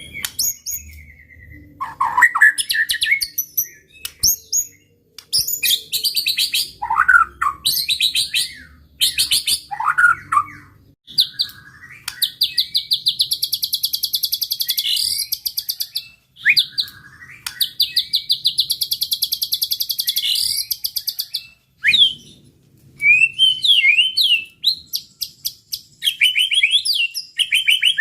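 White-rumped shama (murai batu) singing a long, varied song: whistled phrases and sweeping notes, two long fast rattling trills of several seconds each in the middle, and quick chattering notes near the end. It is the continuous, vigorous 'gacor' song used as a pancingan to provoke rival shamas.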